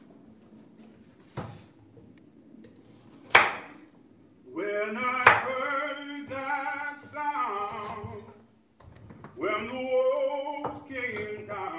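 A few sharp knocks on the kitchen counter, with a voice singing two short phrases of held notes, one starting about four seconds in and one about nine seconds in.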